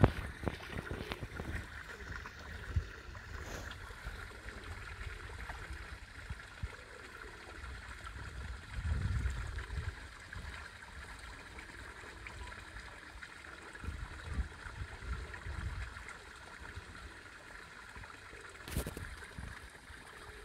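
Steady trickle of running water in a garden pond, with low rumbles of wind on the microphone that swell about nine seconds in and again around fourteen to sixteen seconds. One sharp click near the end.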